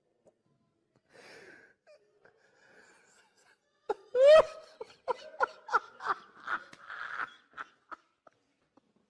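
A man laughing helplessly, trying to hold it in. There are only faint breaths for the first few seconds. About four seconds in comes a high squeal rising in pitch, then a run of short laugh bursts, about three or four a second, that dies away near the end.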